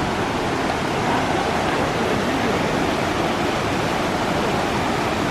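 Steady rush of water from the Tahquamenon River's falls and rapids, running high.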